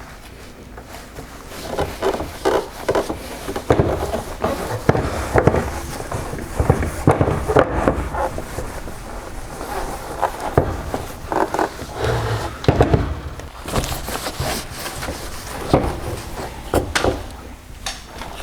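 Microfiber cloth wiping rubbing-compound residue off a plastic headlight lens: irregular rubbing and scuffing strokes.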